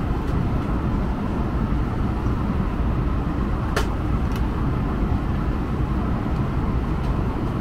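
Steady low rumble inside an Airbus A320's cabin on the ground after landing, with a sharp click a little under four seconds in.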